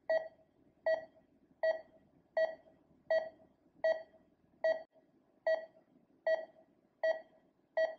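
Short electronic beeps repeating at an even pace, about four every three seconds, eleven in all, each a brief mid-pitched tone.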